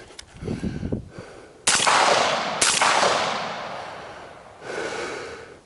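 Two shots from a suppressed 11.5-inch AR-pattern carbine, about a second apart, each with a long echoing tail, fired to test the rifle's newly adjusted gas block. A softer noise follows near the end.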